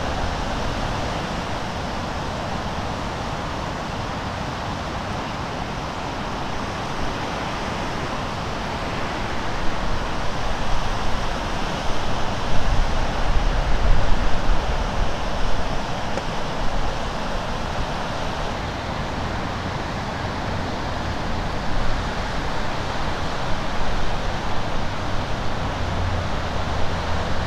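Surf breaking and washing onto the shore, a steady rushing hiss, with wind buffeting the microphone in louder low gusts about ten to sixteen seconds in.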